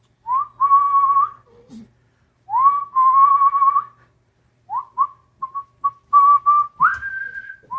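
A man whistling to call puppies outside: two long notes that swoop up and hold, then a quick string of short chirps and a last, higher held note.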